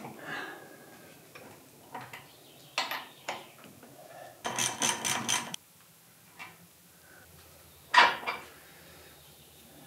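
Light metallic clinks and knocks from tools and hydraulic cylinder parts being handled during seal removal, with a quick run of about five rapid strokes halfway through and a sharp knock, the loudest sound, near the end.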